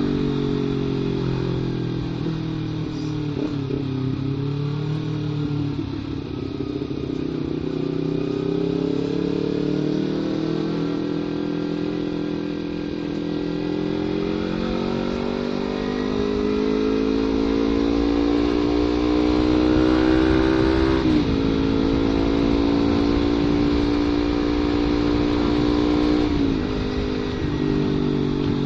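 Kawasaki Ninja 250 FI parallel-twin running through an aftermarket CLD header and Prospeed Black Series silencer, the engine pitch climbing slowly under acceleration, then dropping sharply about two-thirds of the way in and again near the end, as on gear changes.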